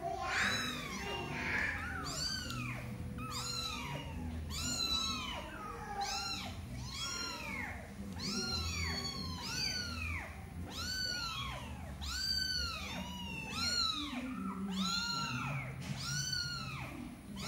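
Young kittens mewing over and over, high-pitched calls that rise and fall, about two a second and often overlapping.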